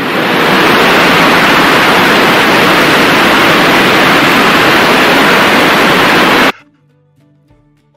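Recorded waterfall sound: a loud, steady rush of falling water that starts abruptly and cuts off suddenly about six and a half seconds in.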